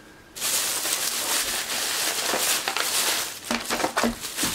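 Thin plastic carrier bag rustling and crinkling as a takeout bento box is pulled out of it. The rustling starts suddenly just under half a second in.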